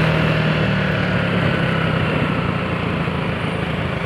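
Motorcycle engine running steadily under way, with wind rushing over the helmet-mounted microphone.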